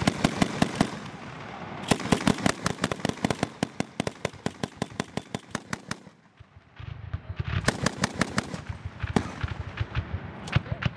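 Rapid gunfire on a firing range: long strings of sharp shots at about six or seven a second, with a brief break a little past the middle before the firing resumes.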